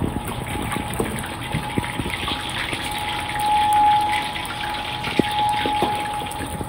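Water running and gushing steadily from a tap, with a faint steady hum and a few light knocks.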